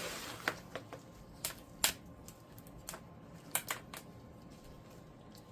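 Irregular light clicks and taps of wiring and a plastic connector plug being handled while a wire is picked out and fitted into the plug.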